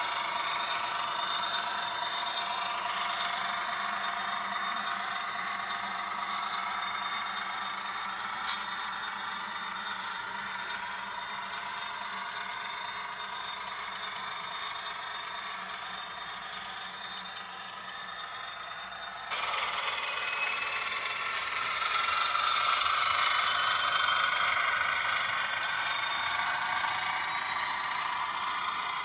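HO scale model trains running on a layout: small electric motors whining with wheels clattering on the track, the whine slowly shifting in pitch. The sound jumps louder and brighter about two-thirds of the way through.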